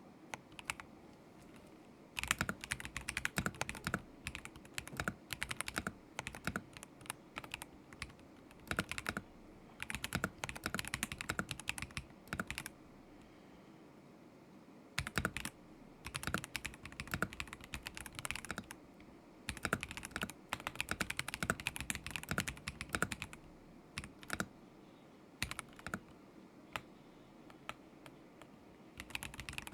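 Typing on a KZZI K75 Pro mechanical keyboard with Moment linear switches: runs of rapid keystrokes broken by pauses of a second or two.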